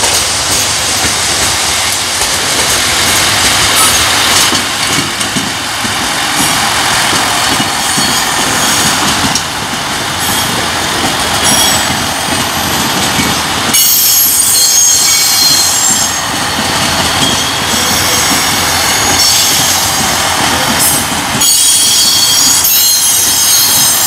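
Freight train wagons rolling past on the rails, with a steady loud rumble and the clack of wheels over rail joints. A high-pitched wheel squeal comes and goes in the second half.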